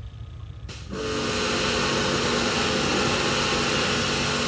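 Electric pressure washer starting about a second in and then running steadily: a motor hum under the loud hiss of the high-pressure water jet spraying onto the boat's deck.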